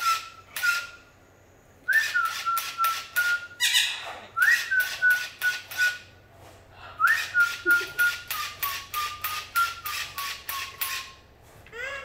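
Electronic sound effects from a handheld light-up toy, in three bursts. Each burst is a quick rising chirp followed by a run of rapid pulsing beeps that step slowly down in pitch.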